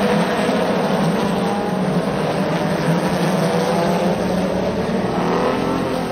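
A pack of Chevrolet Opala race cars with straight-six engines running at speed past the grandstand, many engines sounding at once, their pitches wavering up and down as the cars go by.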